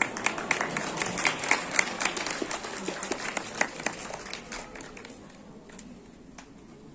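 Audience applauding, many hands clapping at once, dying away over the last couple of seconds.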